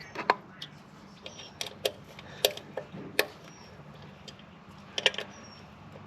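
Irregular light metallic clicks and taps, about a dozen, from hand tools and a meter probe working at the throttle body while the throttle position sensor is being adjusted.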